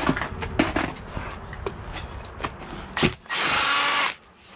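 Clicks and knocks of metal tools working on engine bolts. About three seconds in, a power drill runs in one short burst of just under a second.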